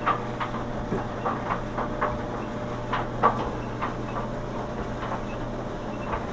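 GE stackable dryer running, its drum giving a quick, uneven run of short squeaks, about two or three a second, over a steady hum. The squeak is getting progressively worse and comes from the drum post at the drum bearing.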